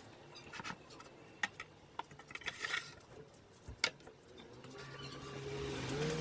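Light clicks and knocks of a flat plate being set down and shifted between aluminium rails on a plywood base, with a brief scraping slide midway and a sharper knock a little before four seconds. A low hum swells in near the end.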